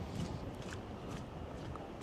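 Footsteps of a person walking on a snowy sidewalk, about two steps a second, over a steady low rumble.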